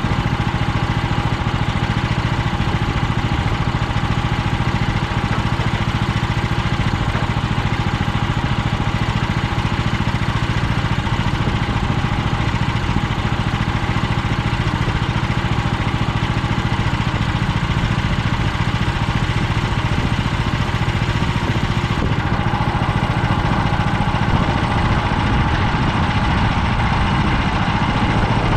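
Small gasoline engine of an HM130 portable band sawmill running steadily, driving the band blade. About three-quarters of the way through, a higher tone grows stronger over the engine.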